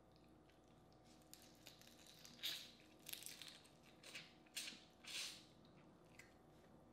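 Mouth sounds of eating boiled crawfish: several short biting and sucking noises at the shell, the loudest about two and a half seconds in.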